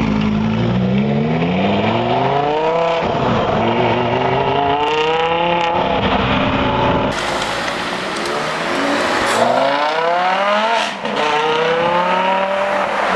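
Lamborghini Gallardo Spyder's V10 accelerating hard away, revs climbing steeply with an upshift about three seconds in and climbing again. After a cut, another sports car engine revs up through the gears, with a shift a couple of seconds before the end.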